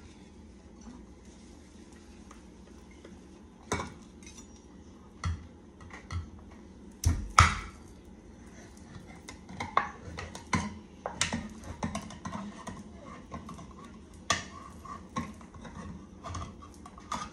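Kitchen clatter: scattered metallic clinks and knocks of utensils and cans against the counter and sink, with a louder clunk about seven seconds in and a quicker run of small clicks in the second half.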